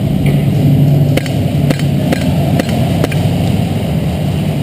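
Airsoft pistols firing: several sharp, separate pops about half a second to a second apart, over a steady low rumble of background noise.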